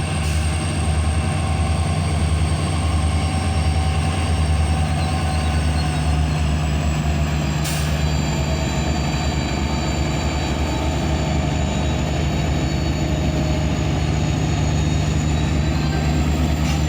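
Indian Railways WDP4D diesel locomotive's EMD 16-710 two-stroke V16 engine humming steadily, a deep even drone with a faint high whine above it and one brief click about eight seconds in.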